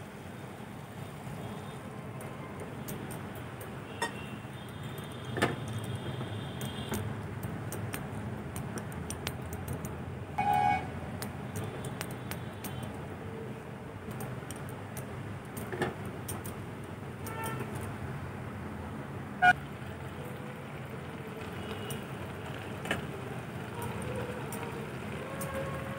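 Milk and grated carrots simmering in a nonstick wok, a steady low noise, with about six sharp taps and clinks of a steel bowl and spatula against the pan. Two of the clinks, about ten and nineteen seconds in, ring briefly.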